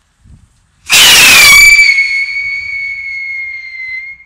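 A Turbo Salut whistling rocket launches about a second in with a loud rushing burst, then climbs with a steady high whistle that sinks slightly in pitch and fades over about three seconds.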